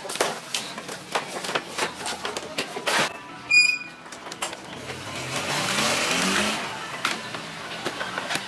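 Sharp snaps and cracks of white PVC foam board (Fomex) being broken and pulled off a boat hull, with one short high ping a little past three seconds in. Around the middle, a passing engine swells up with a rising note.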